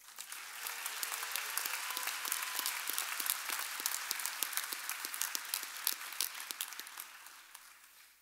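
Audience applauding: many hands clapping together, thinning out and dying away near the end.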